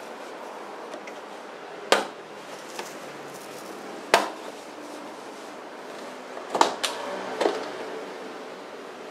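Plastic retaining clips snapping loose as the cabin air-intake duct panel is pulled down from the underside of a Mercedes-Benz W210's bonnet: five sharp clicks, two spaced apart, then three in quick succession near the end.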